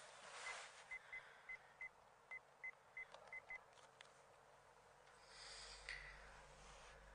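Telephone keypad beeping as a number is dialled: about ten short, high beeps at an uneven pace, one per key press.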